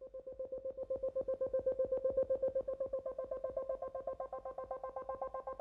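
Background electronic music: a synthesizer note pulsing rapidly and evenly, with a higher note joining in about halfway through.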